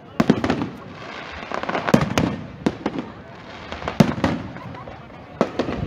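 Aerial firework shells bursting overhead: a string of sharp bangs, several in quick pairs, with crackling in between.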